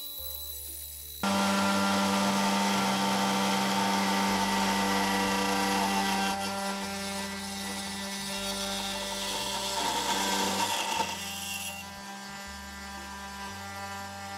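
Desktop CNC router spindle with a 1/8 in O-flute end mill cutting a contour slot in 6061 aluminium plate: a steady whine with a hiss of cutting. It starts abruptly about a second in and eases off near the end.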